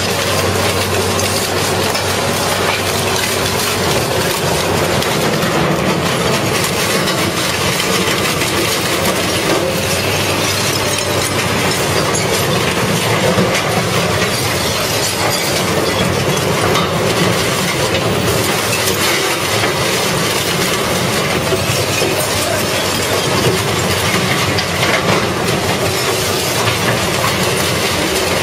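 Red Giant mobile shredder running under load, its slow cutter shafts crunching and grinding scrap engine parts and metal, with a steady low machine hum under constant metallic rattling.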